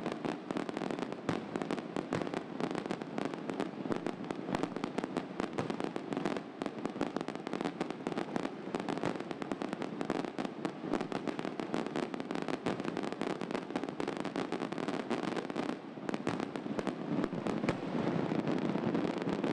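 Thousands of fireworks going off at once in a church bell tower, a rogue firework having set off the rest by accident: a continuous, rapid crackle of bangs. There is a brief lull about four seconds before the end, then the barrage picks up again.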